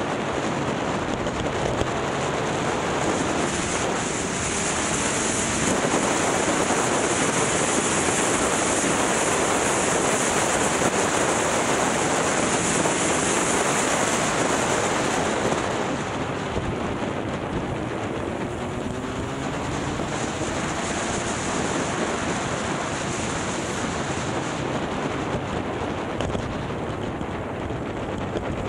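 Wind rushing over the microphone of a moving motorcycle, with the bike's engine and road noise underneath. The noise is steady and eases a little about halfway through.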